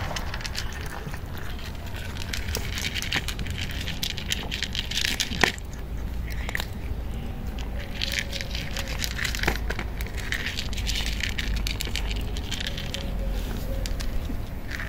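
Cats crunching dry kibble: rapid crackly chewing clicks, with one sharp louder click about five seconds in, over a low steady rumble.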